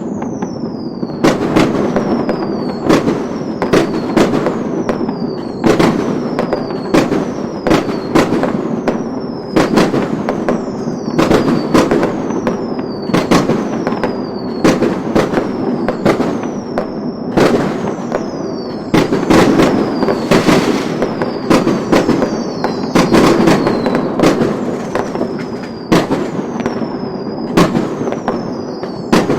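Chinese fireworks going off continuously: rapid sharp bangs, several a second, over a dense crackle. A high whistle falls in pitch about every second and a half.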